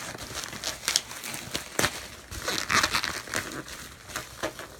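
Plastic packaging crinkling and rustling as it is handled, with scattered clicks and taps. The rustling is densest and loudest about two and a half to three seconds in.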